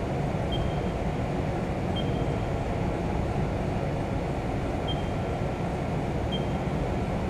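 Haas VF-2 CNC vertical mill running a probing cycle: a steady machine hum with four short high beeps in two pairs.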